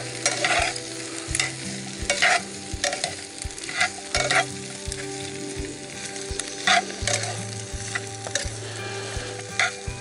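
Metal tongs tossing chopped vegetables in a hot cast-iron Dutch oven: irregular clicks and scrapes of the tongs against the pot over a steady sizzle of the vegetables frying.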